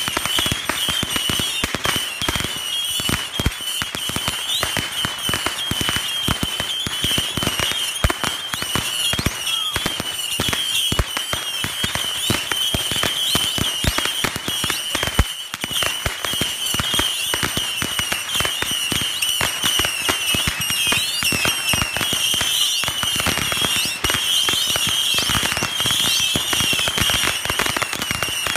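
Firecrackers and small fireworks popping in a dense, nonstop crackle of many bangs a second, with a steady high-pitched shrill running underneath.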